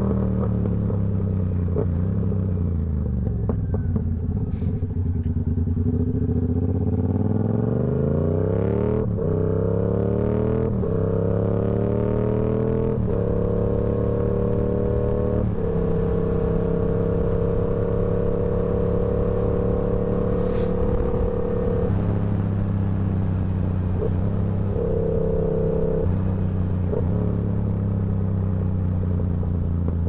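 Yamaha R7's parallel-twin engine through a TOCE full-system exhaust, riding: the engine note falls as the bike slows, then rises as it accelerates up through the gears, the pitch dropping at each shift about 9, 11 and 13 seconds in. It then holds a steady cruise and eases off lower for the last stretch, with a brief rev near the end.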